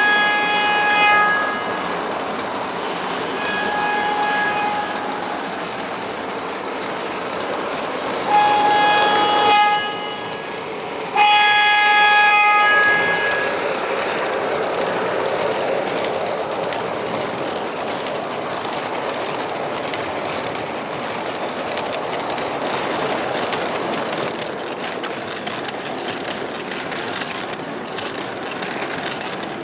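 MTH R40 subway model train's DCS sound system sounding its horn four times, each blast about a second and a half long, within the first 13 seconds. Under the horn runs a steady rolling, clickety-clack running sound as the train moves.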